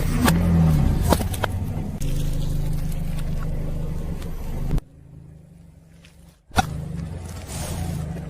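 Car engine running at low speed as the car rolls forward, with a few sharp cracks in the first second or so. The sound breaks off abruptly several times, most sharply near the end, where it drops to a quieter stretch before the engine returns.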